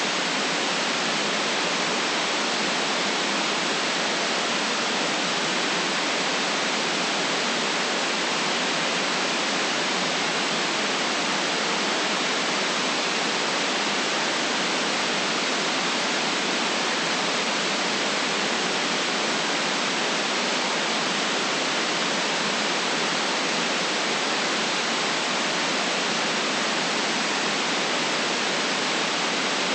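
Steady white noise: an even, unbroken hiss with no change in level.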